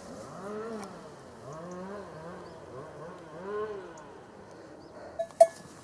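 Cowbells on grazing cows clanking a few times near the end, each a short ringing clang. Before them there is a soft, faint humming that rises and falls.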